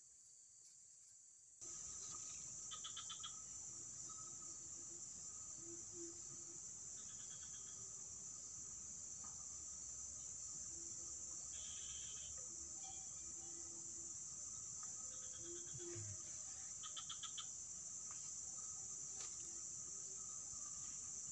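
Steady high-pitched insect chorus, with short chirping trills from other creatures now and then.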